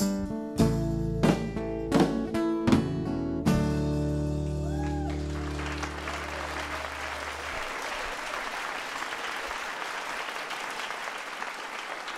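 A band ends a song with a run of accented hits on acoustic guitar, electric bass and drums, then a final chord that rings out for about four seconds. Audience applause starts about five seconds in and keeps going.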